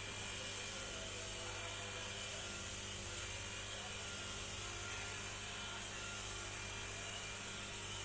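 Electric paint-spraying motor running with a steady hum under the even hiss of a compressed-air spray gun spraying a fine mist of paint.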